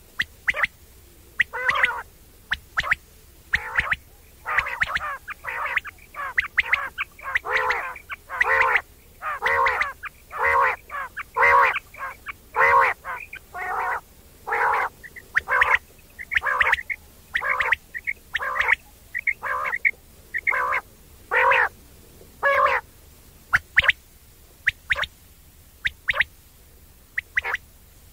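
Quail giving its 'wong wong' call: short pitched notes repeated about twice a second for most of the stretch, thinning to sparse, briefer notes near the end.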